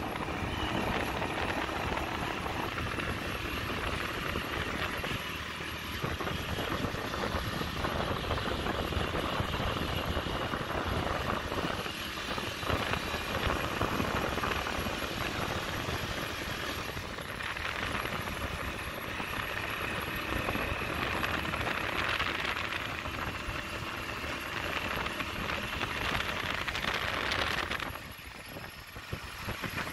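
Small motor vehicle being ridden in, open to the air: engine running steadily with road and wind noise. It goes briefly quieter about two seconds before the end.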